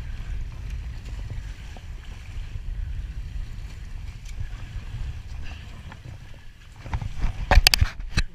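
Wind rumbling on the microphone over choppy sea around a small open boat while a fish is reeled in. Near the end comes a quick burst of loud knocks and clatter.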